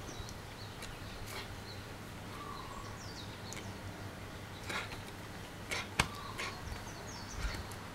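Outdoor ambience with birds chirping now and then over a steady low hum, and a single sharp click about six seconds in.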